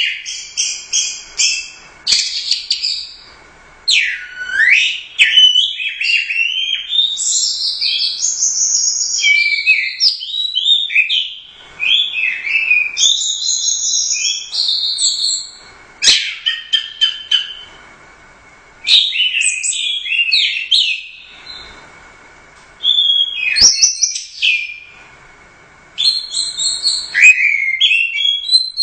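Orange-headed thrush singing a loud, varied song of quick whistled and chattering phrases that slide up and down in pitch. The phrases come in bouts separated by short pauses, with two sharp clicks, one a little past the middle and one about three-quarters through.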